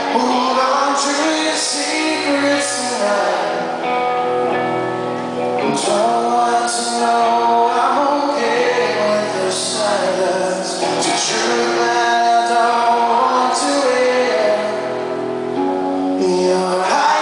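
Live rock music: a man singing lead into the microphone over a full band, with held sung notes and recurring bright hits every second or few.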